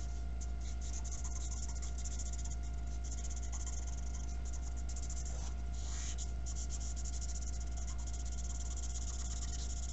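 Felt-tip marker scribbling on paper in quick, short back-and-forth strokes, colouring in an area, over a steady low hum.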